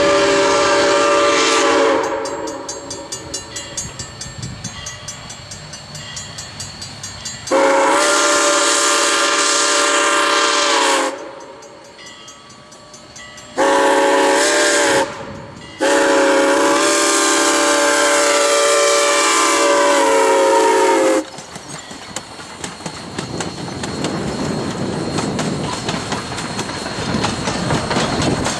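A locomotive's chime whistle sounds a sequence of blasts: the tail of a long one, then long, short, long. This is the grade-crossing signal. Between and after the blasts the train rumbles along the rails with a faint clicking of the wheels.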